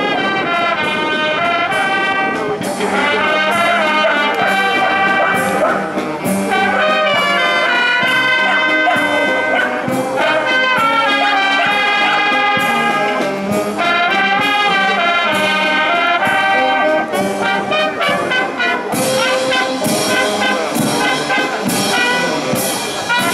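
Naval brass band playing: trumpets, saxophones and tubas sounding together in a continuous full ensemble piece.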